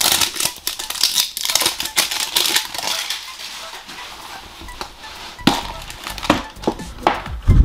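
Clear plastic wrap crinkling as it is peeled off a faceted plastic gem-shaped toy capsule, dense for the first few seconds. Then a few sharp plastic clicks near the end as the capsule halves are pried apart.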